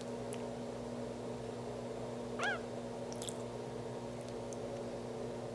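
Bearded dragon burping once, a short squeaky chirp that bends in pitch about two and a half seconds in, over a steady low hum. It is letting out air swallowed while gulping its food.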